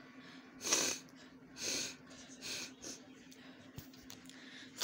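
A person with a head cold breathing forcefully through a runny, blocked nose: four short breathy bursts about a second apart. The first, about half a second in, is the loudest, and the others are fainter.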